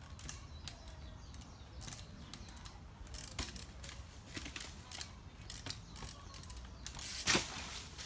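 Trials bicycle being hopped and balanced on rocks: scattered light clicks and taps from the bike, then one loud knock about seven seconds in as the bike lands on a rock.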